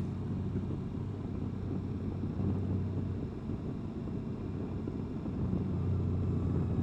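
Honda Gold Wing motorcycle's flat-six engine running steadily under way, a low drone with road and wind noise, growing a little louder near the end.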